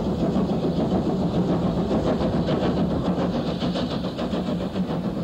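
Adams 4-4-2 Radial Tank steam locomotive working a train, its exhaust beats coming quickly and evenly, with a steady low hum underneath.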